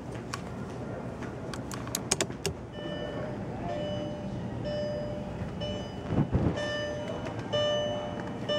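A few light plastic clicks as a headliner vanity mirror flap is handled, then background music of held single notes. One low muffled thump about six seconds in.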